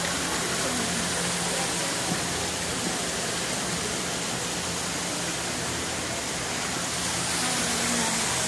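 Steady rushing splash of a small waterfall tumbling over rocks into a pool, with a faint low hum underneath.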